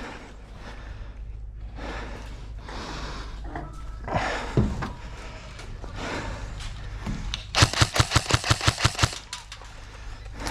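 An airsoft rifle fires a rapid full-auto burst of about fourteen shots, lasting under two seconds, about eight seconds in. Before it there is only quieter shuffling movement noise.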